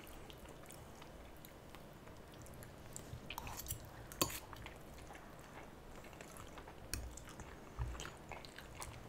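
Quiet eating sounds: noodles being slurped and chewed, with a few light clicks of metal forks against glass bowls, the sharpest about four seconds in.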